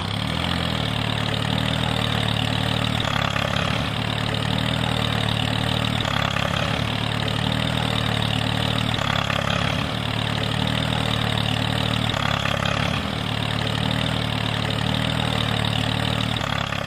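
A motor engine running steadily at idle, a low even drone with a hiss over it that swells slightly about every three seconds. It starts and stops abruptly.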